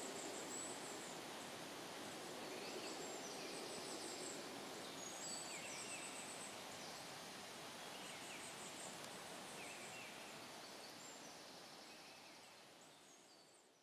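Goldcrests calling: short, very high, thin notes repeated at irregular intervals over a faint, steady background hiss of woodland air. The sound fades out near the end.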